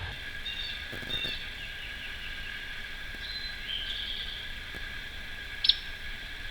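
Outdoor woodland ambience: scattered songbird chirps over a steady high-pitched drone, with one short sharp click about five and a half seconds in.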